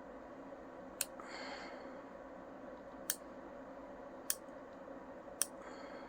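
Nail clippers snipping a Pembroke Welsh Corgi puppy's nails: four sharp clicks spread over a few seconds, with a faint rustle of handling after two of them.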